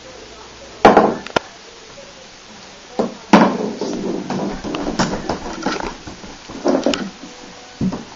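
Sharp knocks and scuffling on a hardwood floor as a crawling baby handles a golf ball, about half a dozen hits with rougher scraping noise in the middle.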